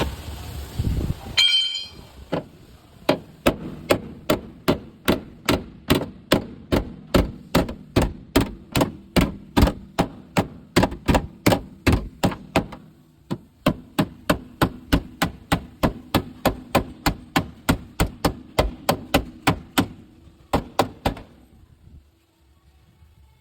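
Hammer blows on metal, evenly paced at about three a second, in two long runs with a short pause about 13 seconds in and a last couple of strikes near the end.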